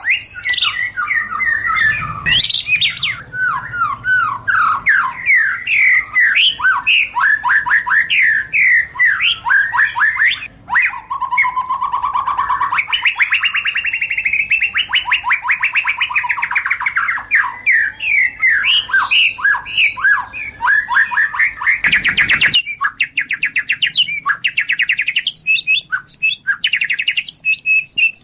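White-rumped shama singing: a fast, unbroken run of varied whistled and chattering phrases, with a long rapid buzzy trill in the middle. A brief harsh rasp comes near the end.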